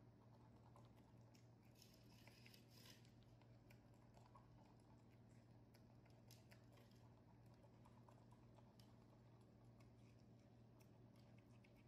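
Near silence: faint scattered clicks of baby macaques nibbling kernels off corn cobs, over a low steady hum.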